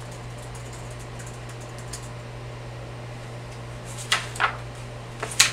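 Steady low hum of a window air conditioner, with faint clicking of laptop keys in the first half. About four seconds in, and again near the end, a few louder sharp rustles.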